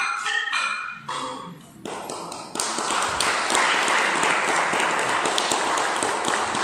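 Rhythmic percussion music for the dance ends about a second in; then, about two and a half seconds in, a small audience breaks into sustained clapping.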